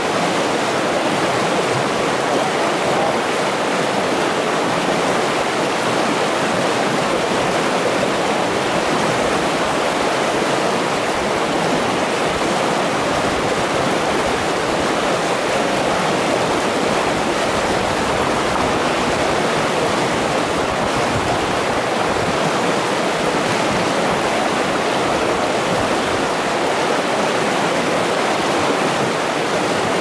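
River rapids rushing over rocks: a loud, steady rush of whitewater that does not change.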